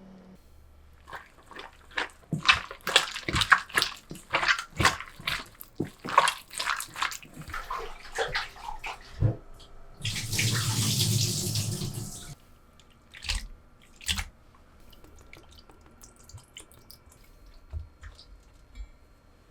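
Kitchenware clinking and knocking at a sink, then a tap running for about two seconds, followed by a few light knocks.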